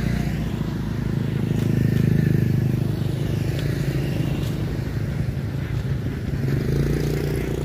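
Low, pulsing motor-vehicle engine rumble from passing road traffic, swelling about two seconds in and again near the end.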